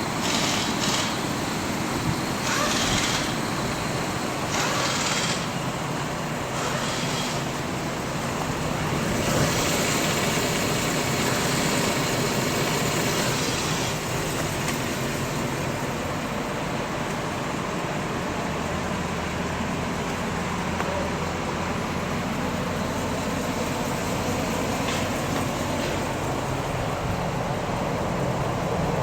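Steady motor-vehicle noise, an engine running under a haze of road and traffic sound, with several short bursts of hiss in the first half.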